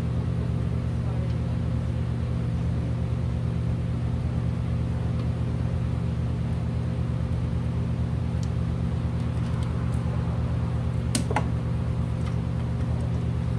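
Steady low mechanical hum at an even level, with a few light clicks about eleven seconds in as hands work among the fuel hoses.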